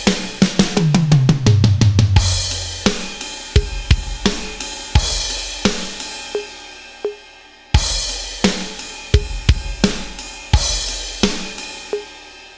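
Electronic drum kit with mesh pads played alone: in the first two seconds a fast sixteenth-note fill runs across the snare and down the toms, landing on a crash. Then a steady rock beat of bass drum, snare and hi-hat follows at about 86 beats a minute, with crash accents and brief gaps before them.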